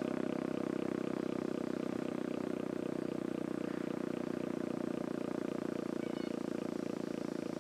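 ASC OM-117 outdoor warning siren sounding a steady low tone with a fast, even flutter.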